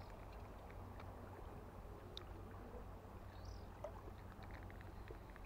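Faint low rumble of wind on the microphone, with scattered light ticks from the spinning rod and reel being handled and one short high chirp about three and a half seconds in.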